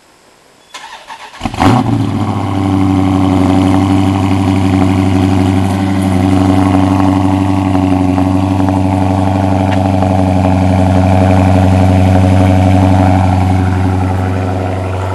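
Dodge Charger 392 Scat Pack's 6.4-litre HEMI V8 cold-started after sitting: the starter cranks briefly about a second in, the engine catches with a loud flare, then settles into a steady, loud fast idle that eases slightly near the end.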